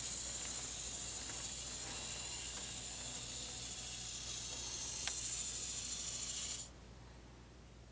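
Tomytec Moving Bus System's magnet drive running under the model roadway, a steady high-pitched whirring hiss with a faint click, as it pulls an N-scale bus along. It cuts off abruptly a little over six seconds in as the bus halts at the bus stop.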